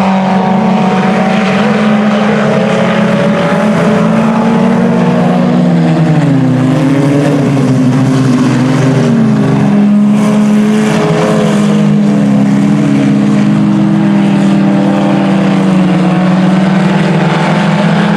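Several IMCA Sport Compact race cars' four-cylinder engines running hard at speed, a steady loud drone whose pitch dips and climbs again a few times in the middle as drivers lift off and get back on the throttle.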